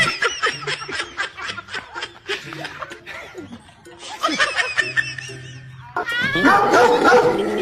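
Laughing in quick repeated pulses over background music, with a louder, busier stretch of voices and music starting about six seconds in.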